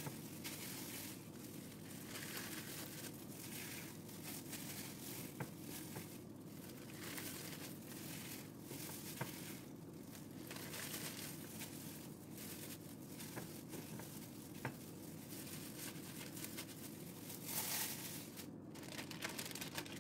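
Faint crinkling and rustling of a plastic zip-top bag as marinated chicken breasts are handled and pushed into it, with a few light clicks and a louder bout of rustling near the end.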